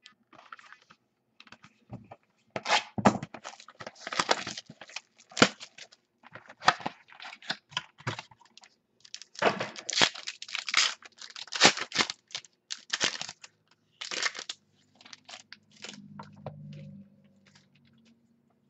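The wrapper of a trading-card pack being torn open and crinkled by hand: irregular crackling and tearing that comes in bursts for most of the stretch, then dies away.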